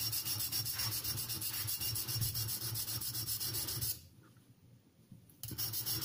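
The tip of a knife's Sandvik 12C27 steel blade scraping on the corner of an oiled Norton India Fine stone in quick strokes, grinding a new tip onto the damaged blade. The scraping stops for about a second and a half about four seconds in, then resumes.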